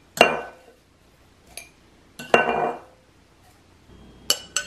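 Spoon and glass mason jar clinking against a ceramic mixing bowl as coarse sugar scrub is scooped and tipped into the jar. A few sharp clinks with a short ring, the loudest just after the start and about two seconds in, two quicker ones near the end.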